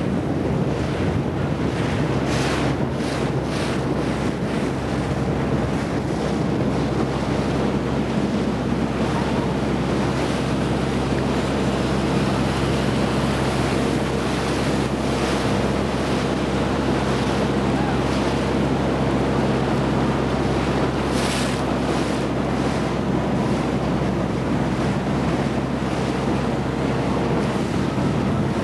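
Motorboat under way: its engine hums steadily beneath wind buffeting the microphone and water rushing past the hull, with a few sharper splashes, a cluster about three seconds in and another about twenty seconds in.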